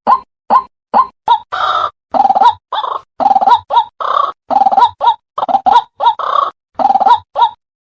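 White-breasted waterhen calling: a run of short clucking notes about two and a half a second, then from about a second and a half in, longer harsh croaking notes in quick succession.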